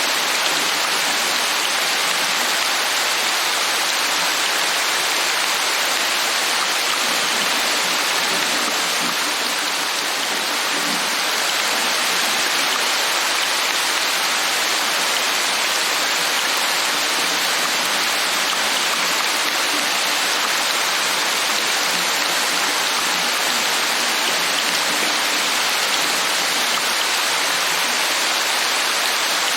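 Rain falling steadily, an even hiss with no pauses or single drops standing out.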